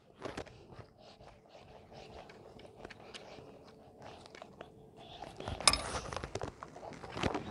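Faint ticks and soft scrapes of a pastry brush spreading oil over a ball of dough in a plastic bowl, with louder handling noise about five and a half seconds in as the brush is laid down in a clay bowl.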